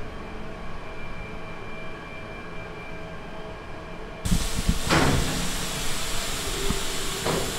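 Low steady machine hum, then about four seconds in a loud hiss of steam starts suddenly and keeps on as the basket of boiled sundae is hoisted out of the stainless steel cooking tank, with a few low knocks.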